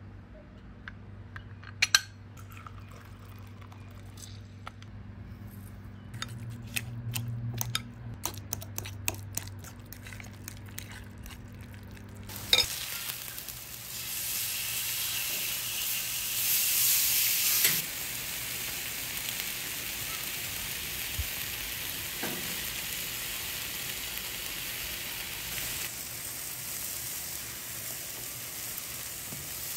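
For about the first twelve seconds, soft avocado being mashed in a glass bowl with a hand-held citrus squeezer: scattered clicks and taps. Then seasoned chicken sizzling on a flat-top griddle, loudest for a few seconds after it starts, then settling into a steady sizzle.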